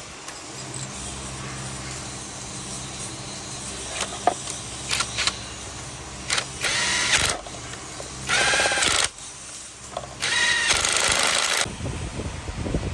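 A power tool run in three short bursts of about a second each, over a steady low machine hum, with a few sharp metallic clicks before the bursts.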